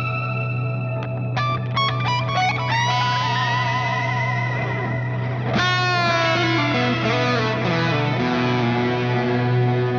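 Electric guitar played through a GFI System ORCA delay pedal: held notes, a quick run of picked notes, then a chord struck about halfway through, all trailing off in long washy delay repeats.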